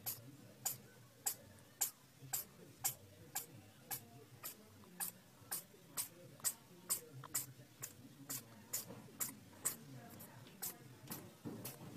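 A steady run of short, sharp clicks, about two a second, over a faint low hum.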